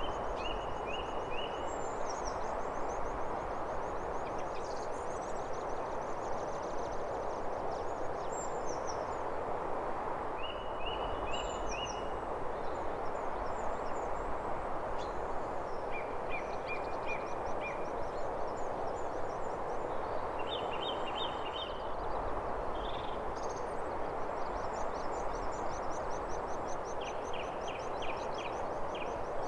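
Outdoor nature ambience: a steady hiss with small birds calling over it, short runs of four or five quick chirps every few seconds and high, rapid trills.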